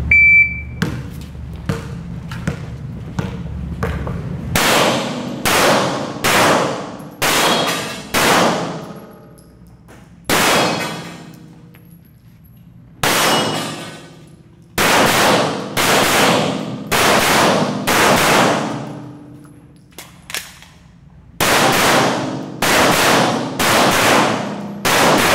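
Shot timer beep, then a pistol fired about twenty times in quick strings with short pauses between them. Each shot trails off in a long echo off the concrete walls of an indoor range.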